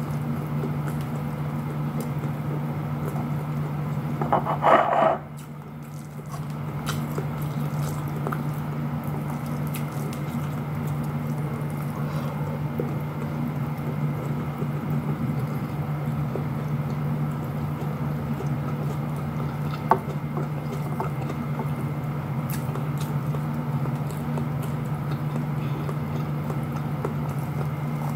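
Quiet eating by hand: fingers pinching and mixing steamed rice and fried fish on a plate, with small wet chewing and plate clicks, over a steady low hum. A brief louder sound comes about five seconds in.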